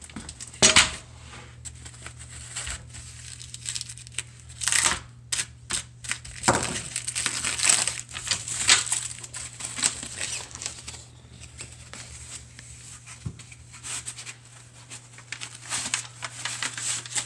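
Plastic wrapping being crinkled, pulled and torn off by hand in irregular bursts, the sharpest about a second in and several more in the middle. A steady low hum runs underneath.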